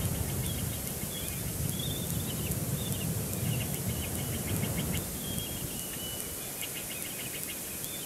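Outdoor wind rumble on the nest-cam microphone, easing after about five seconds, with high bird chirps and trills throughout and a thin steady whistle about six to seven seconds in.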